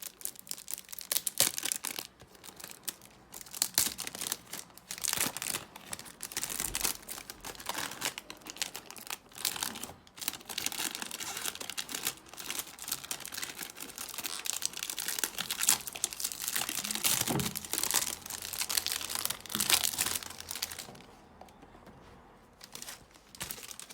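Cellophane wrap being torn and peeled off a perfume box, crinkling and crackling continuously, then dying down near the end.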